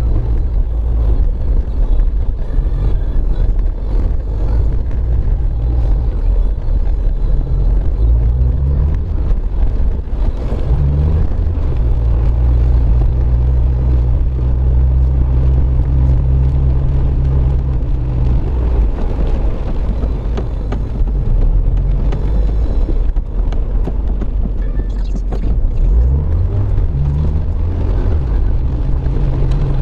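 Car engine and tyre noise heard from inside the cabin while driving on wet pavement. A low engine hum runs under a steady road hiss, and its pitch climbs a few times as the car speeds up, once about a third of the way in and again near the end.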